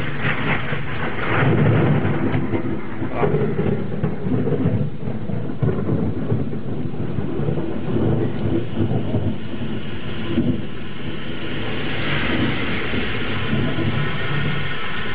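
Rolling thunder rumbling, swelling and fading unevenly for about ten seconds. Near the end a rain hiss grows louder.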